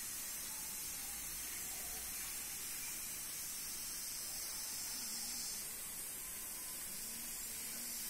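Steady high-pitched hiss of outdoor ambience, with a slight change in its upper part about two-thirds of the way through.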